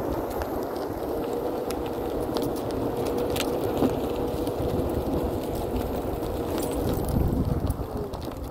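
Floatwheel ADV self-balancing one-wheel electric board riding over asphalt: a steady high hub-motor whine over a low tyre rumble, with scattered small clicks from grit and cracks under the tyre. The whine dips slightly in pitch near the end.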